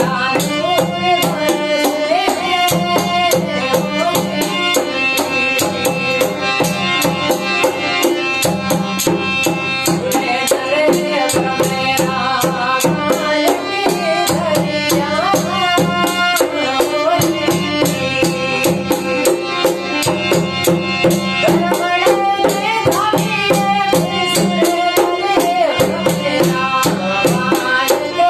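Desi bhajan music: dholak and jingling hand percussion keep a fast, steady beat under a wavering melody line.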